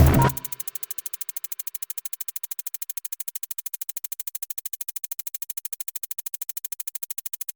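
Electronic background music: the full beat drops away early, leaving a faint, fast, steady synth pulse repeating about ten times a second, which cuts off near the end.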